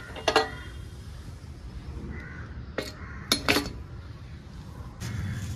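A handful of short, sharp sounds, one about a third of a second in and a cluster around three to three and a half seconds in, over a low steady hum.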